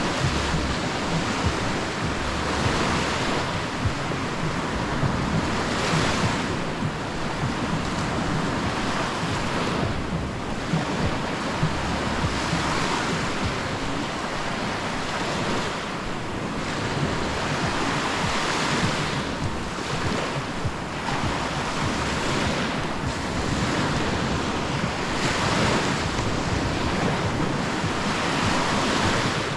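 Small sea waves breaking and washing up the shore, swelling and fading every few seconds, with wind rumbling on the microphone.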